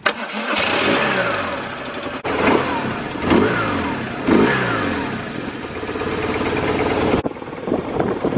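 BMW R1100RT's boxer twin engine revving and accelerating, its pitch rising and falling several times.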